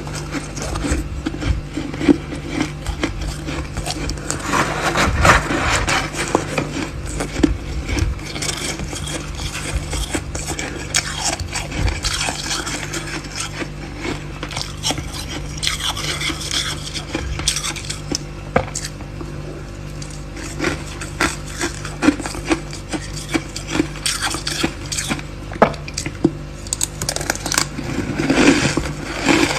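Freezer frost being scraped and crunched: a dense run of scratchy, crackling clicks over a steady low hum.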